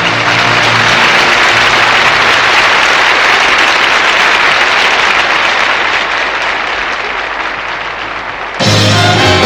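Concert audience applauding steadily after a song, the clapping easing slightly towards the end. Near the end it cuts abruptly to a big-band brass intro.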